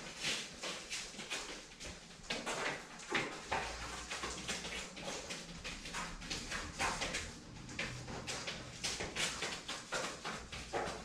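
A dog moving about and searching on foam floor mats: quick, irregular soft clicks and puffs from its paws and sniffing, a few each second.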